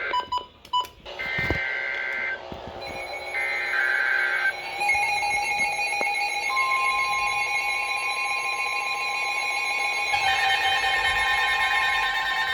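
Emergency Alert System tones: two short buzzy data bursts of the SAME header, each about a second long, followed from about five seconds in by the long steady two-note attention signal, harsh and distorted.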